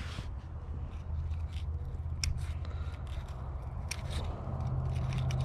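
Scattered light clicks and scrapes of a lure's metal hooks being worked loose by hand from the mouth of a white bass that has swallowed it deep, over a low steady hum.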